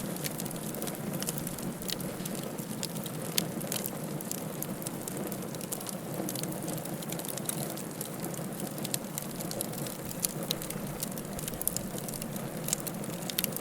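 Wood fire crackling in a fireplace: a steady low rustle with frequent irregular sharp pops and snaps, one louder pop about three and a half seconds in.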